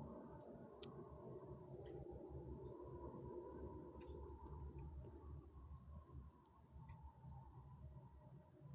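Crickets trilling steadily in one continuous high, slightly pulsing tone, with a faint low rumble underneath.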